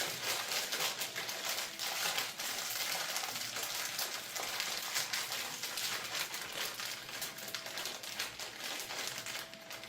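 Seafood and seasoning trimmings being tossed and stirred by hand in a pan: a steady crackly rustle with many small clicks.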